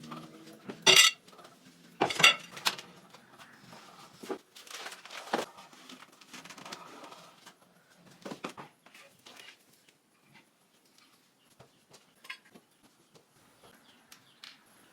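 Decorations and household items being handled and set down: sharp clinks and knocks, two loud ones in the first couple of seconds, then quieter clatter and scattered ticks.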